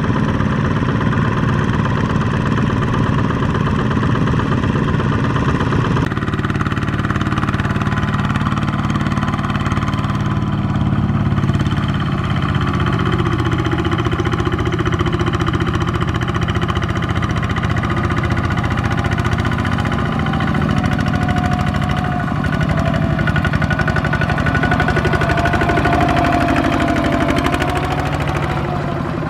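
The single-cylinder diesel engine of a Kubota ZT140 two-wheel walking tractor runs steadily under load as it hauls a trailer of rice sheaves through deep mud. Its pitch wavers over the last several seconds.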